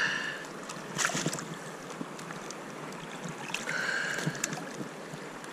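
River current rushing steadily around a wading angler, with a brief burst of noise about a second in and two short high-pitched tones, one at the start and one around four seconds in.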